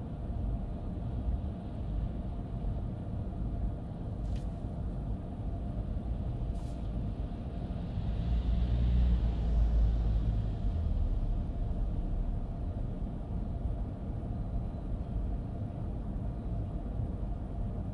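Steady low rumble of a car driving on a wet city road in light rain. Two short clicks come about four and six and a half seconds in. From about eight to eleven seconds a louder swell of rumble and hiss passes, like another vehicle going by.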